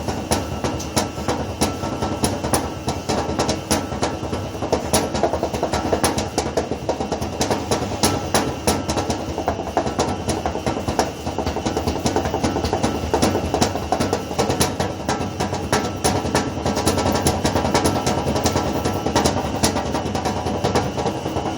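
Fingers drumming on the metal cabinet of a washing machine as a drum solo: a rapid, continuous run of taps and knocks with no pause.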